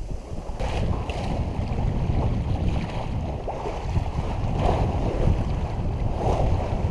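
Wind buffeting the microphone over the rush of water along a sailboat's hull as it sails close-hauled through open-ocean swells. Louder rushes of water come about a second in and twice more near the end.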